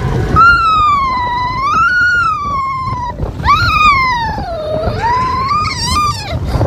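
A young child making a funny high-pitched vocal noise: two long, wavering wails that slide up and down in pitch, the second dipping low before it rises again and breaks off near the end, over a steady low rumble.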